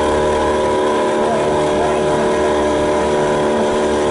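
Motorboat engine running steadily at an even pitch, with the rush of water and wind around it.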